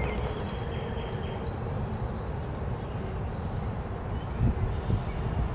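Outdoor ambience: a steady low rumble with a few short bird chirps about two seconds in, and a couple of brief low thumps near the end.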